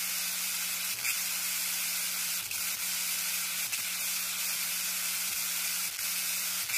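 Steady static hiss with faint crackles and clicks, over a low hum that drops out and comes back several times, like an old-film or worn-tape noise effect.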